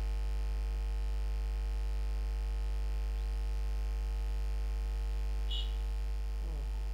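Steady low electrical mains hum with a ladder of overtones, picked up by the recording setup, with no other sound of note.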